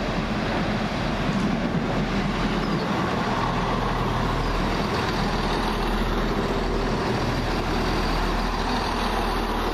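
Class 170 Turbostar diesel multiple unit pulling into the platform, its underfloor diesel engines running steadily under a continuous rail rumble.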